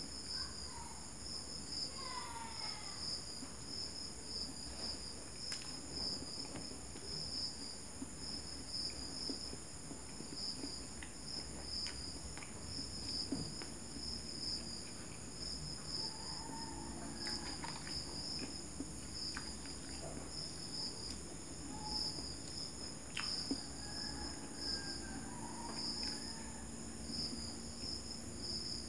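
Crickets trilling steadily in a fast, pulsing high chirr, faint overall. Soft chewing and occasional small mouth clicks come from a person eating a hot dog in a bun.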